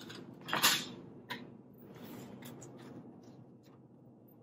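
Kitchen knife cutting radish on a wooden cutting board: one sharp knock less than a second in, a lighter knock shortly after, then a few faint ticks of the blade and pieces on the board.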